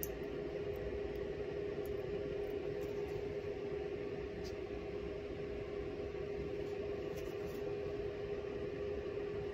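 Steady machine hum holding one constant mid-pitched tone over a bed of even noise, with a few faint sharp clicks of metal toenail clippers snipping nails.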